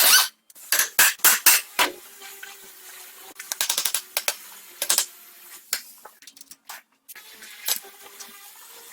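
Metal hand tools clinking and knocking on a car's front suspension parts, with a quick run of rapid clicks about halfway through.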